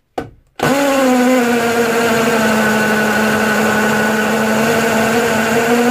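Parkside PSBSA 20-Li B2 cordless hammer drill running steadily in first gear with hammer action on, a masonry bit grinding into hard concrete; it starts about half a second in after a brief blip. The hammer action is too weak for the concrete and the bit barely advances.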